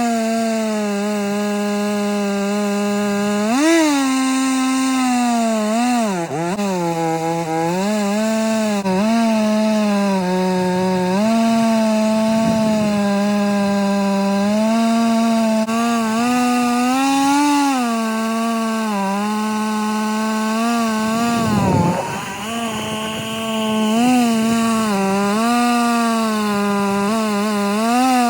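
Two-stroke Stihl chainsaw on an Alaska mill running at high revs under load as it rips a green Douglas fir log lengthwise. The engine pitch dips a few times as the chain bogs in the cut, most deeply a little past two-thirds of the way through, then picks back up.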